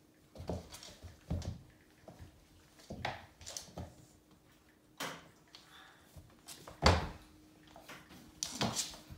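A Bengal cat and a black cat play-fighting on a hard plank floor: scattered thumps and scuffles of bodies and paws hitting and sliding on the boards, the loudest thump about seven seconds in.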